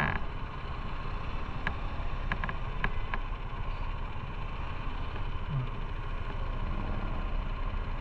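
Motorcycle running steadily under way, a continuous low rumble of engine and riding noise, with a few short clicks about two to three seconds in.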